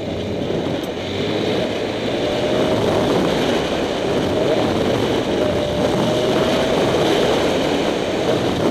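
Motorcycle engine running at a steady pace while riding across rough grass, mixed with heavy wind noise on the helmet-mounted microphone.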